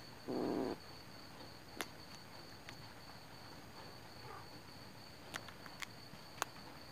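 A kitten gives one short low growl over its prey about half a second in, the loudest sound here. Steady high insect chirping runs underneath, with a few sharp clicks in the second half.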